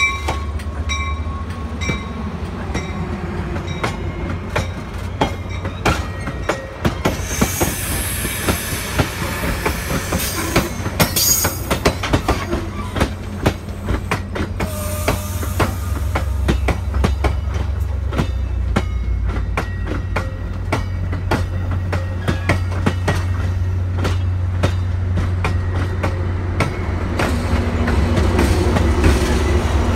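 Metra bilevel commuter cars rolling past close by: a steady low rumble with wheels clicking over rail joints, and brief high wheel squeals twice, from about a quarter of the way in. Near the end the hum of the MP36PH diesel locomotive at the rear grows louder as it comes up.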